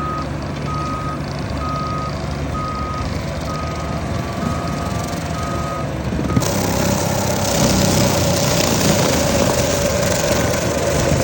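Bobcat T66 compact track loader's backup alarm beeping roughly once a second over its running diesel engine as it reverses. After about six seconds the beeping stops and the machine runs louder, with a strong hiss.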